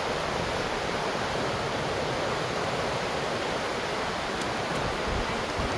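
Steady rush of fast-flowing water, an even hiss with no rhythm.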